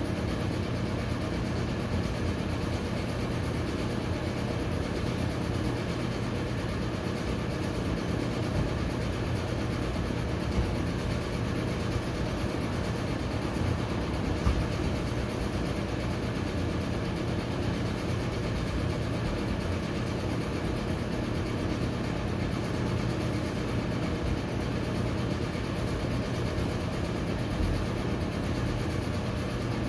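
Steady low mechanical drone with a constant rush of noise and an even hum underneath, unchanging throughout. Two brief knocks stand out, about ten and fourteen seconds in.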